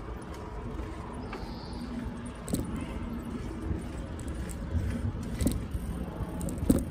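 Steady low wind and road noise on the microphone of a moving bicycle, with a few sharp clicks and rattles from the bike, the loudest near the end.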